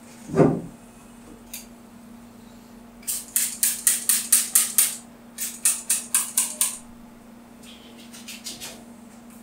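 Trigger spray bottle misting water onto a bowling ball: two runs of quick hissing squirts, about five a second, with a few fainter squirts near the end. A dull thump comes just before, and a low hum runs throughout.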